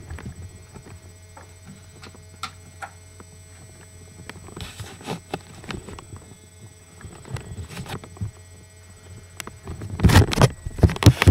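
Footsteps and phone-handling knocks while walking, over a steady low hum, with a burst of louder knocks and rustling about ten seconds in.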